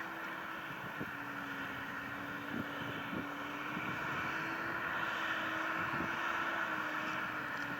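Fendt 724 Vario tractor's six-cylinder turbo diesel engine running steadily under load while pulling a six-furrow reversible plough, with a few light knocks.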